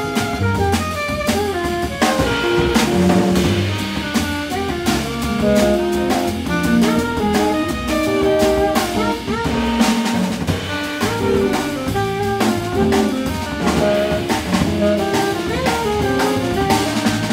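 Live small-group jazz: an alto saxophone plays a moving melodic line over walking upright double bass and a drum kit, with busy cymbal and snare work.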